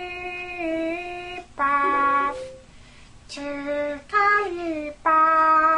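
A woman's voice singing a slow tune of about five long held notes, some sliding down in pitch at their ends, with short breaks between them.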